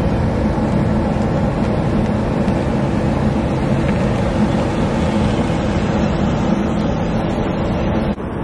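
A car driving: steady engine and road noise. It dips sharply for a moment near the end.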